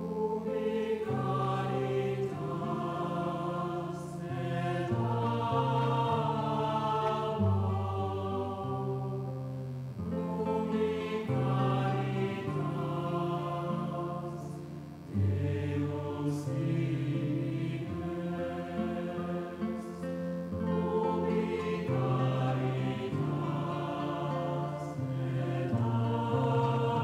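Choir singing a slow sacred chant in harmony, in phrases of long held notes over changing low notes.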